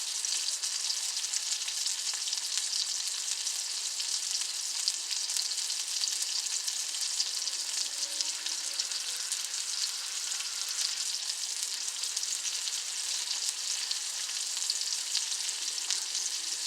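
Bacon-wrapped asparagus sizzling on a grill, a steady crackling hiss of fat frying.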